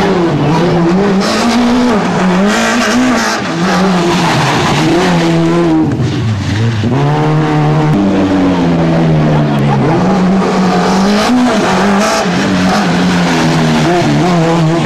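Rally car engines revving hard past the microphone, the pitch climbing and dropping over and over with gear changes and throttle lifts. About halfway through the pitch sinks low and rises again, then jumps suddenly as a second car takes over.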